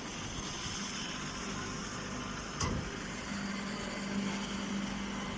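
Small grass silage baler running with a steady mechanical noise, one knock partway through, and a steady low hum coming in a little past halfway.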